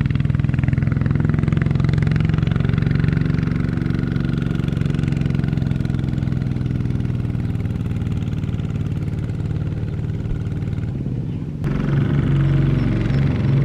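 Kubota ZT155 single-cylinder diesel engine of a two-wheel walking tractor running steadily under load, straining to pull a rice-laden trailer out of mud. About three-quarters of the way in it suddenly gets louder.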